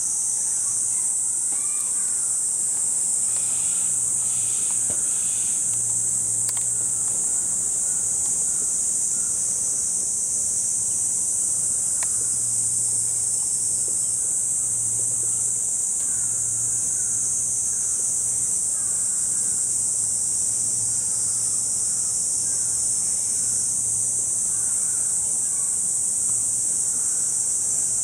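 Cicadas chorusing in summer heat: a loud, steady, unbroken high-pitched drone, over a faint low hum.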